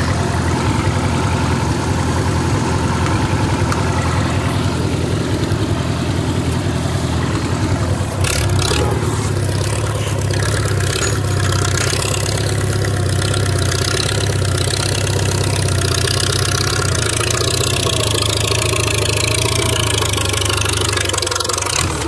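Old tractor engine running steadily as it pulls a disc harrow free by a chain, with a few sharp knocks about eight seconds in.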